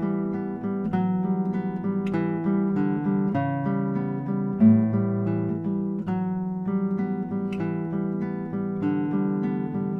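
Acoustic guitar played solo, plucked notes and chords in a continuous flowing line with a louder low note near the middle. It is recorded through a No Hype Audio LRM-2b ribbon mic paired with a DPA 2011C condenser, which gives a full bass.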